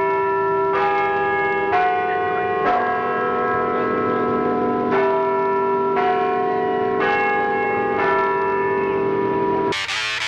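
Church bells ringing in a peal, a new stroke about once a second on bells of differing pitch, each ringing on over the next. They cut off suddenly near the end, and electric guitar music starts.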